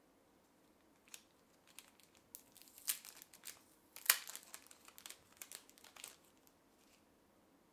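Plastic packaging crinkling as small hardware parts are handled: a string of short rustles over a few seconds, the loudest about four seconds in.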